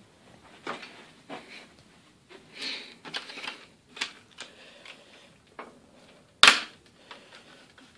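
Plastic clicks and rattles from a Zeikos tripod's three-way pan head being gripped and adjusted by hand, with one loud sharp snap late on.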